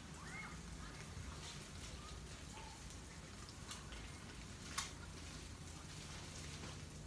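Bacon, a fried egg and bologna slices sizzling faintly on a Blackstone flat-top griddle, with scattered small crackling pops and one sharper pop just under five seconds in.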